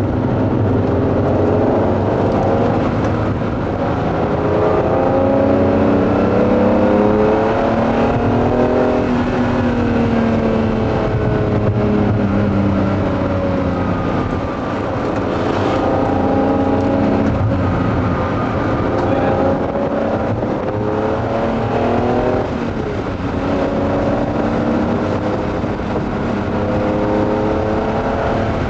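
Ferrari Testarossa's flat-twelve engine heard from inside the cabin while driving, its note climbing with the revs, breaking off at each gear change and climbing again, several times over. Steady road noise runs underneath.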